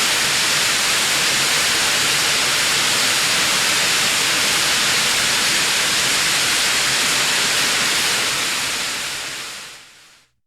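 Spray from a waterfall: a steady, dense hiss of falling water, fading out near the end.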